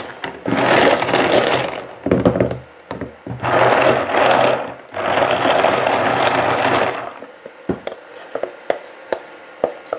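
Hand-held immersion blender running in three runs of a couple of seconds each, whirring through a liquid mix of hot crème anglaise, dark chocolate and gelatin in a glass bowl. After the third run it stops, leaving a few light knocks.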